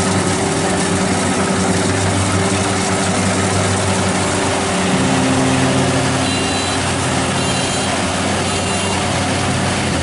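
Maxxi Bimo 102 rice combine harvester's engine running steadily as it works the field, its pitch shifting about five seconds in. Faint high beeps repeat about once a second in the second half, from its reversing alarm.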